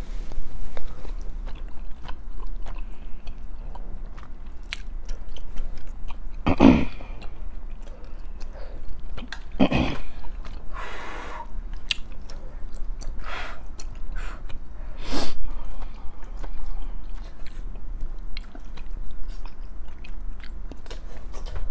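Close-up chewing and eating sounds of tteokbokki rice cakes and ramen noodles, with many small mouth clicks and a few louder bursts along the way.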